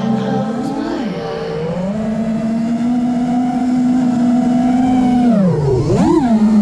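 FPV racing quadcopter's brushless motors and propellers (T-Motor F60 Pro II 2500kv on a Supafly Flipmode) giving a loud, steady whine whose pitch follows the throttle. The whine rises about a second in, holds level, then drops sharply and swings back up near the end as the throttle is chopped and punched again.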